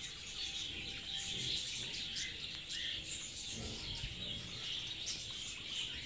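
A flock of caged budgerigars chirping and chattering, many small calls overlapping without a break.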